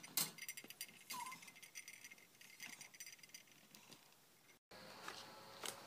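Faint rattling and scattered clicks from a wire pet crate, with a brief high squeak about a second in. The sound cuts off sharply after about four and a half seconds, and a faint steady hiss follows.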